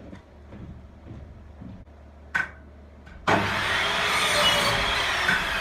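Light handling of timber and a sharp knock, then about three seconds in a power saw starts suddenly and runs loud, cutting through a timber batten offcut.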